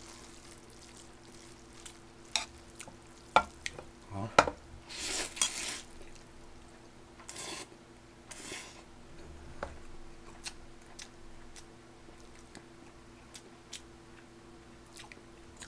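Metal chopsticks clicking and scraping against a metal pot as spicy mixed noodles are stirred and picked up, with noodles slurped in a few short noisy bursts around the middle. A steady low hum runs underneath.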